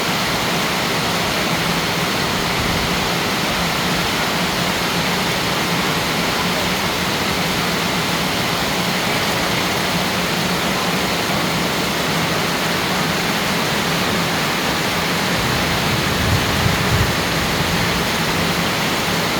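Heavy rain pouring down in a steady downpour, with no thunder.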